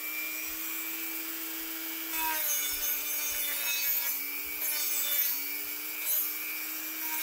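Dremel rotary tool with a small sanding disc running with a steady whine as it sands the cast aluminium blower case. About two seconds in, the pitch drops slightly as the disc bears on the metal, and a scratchy sanding noise comes and goes.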